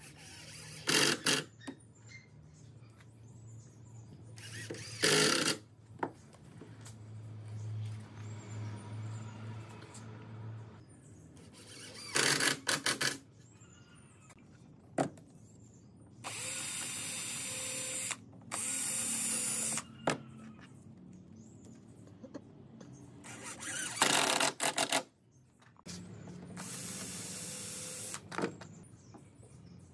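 Cordless drill-driver running in repeated short bursts, driving screws into wooden boards, with two longer runs near the middle and pauses between them.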